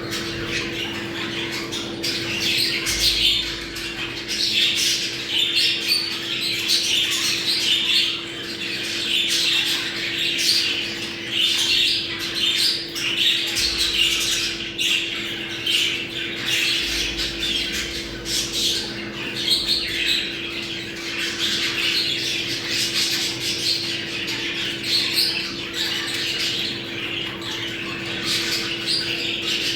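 A flock of budgerigars chattering and warbling continuously with frequent squawks, the breeding-season chatter played to bring budgies into breeding condition. A steady low hum runs underneath.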